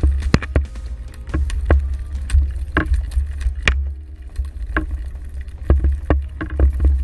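Underwater sound of a Whitty square-bill crankbait on the retrieve: its one-knocker rattle knocking at irregular spacing, about once or twice a second, over a steady low rumble of water moving past the microphone.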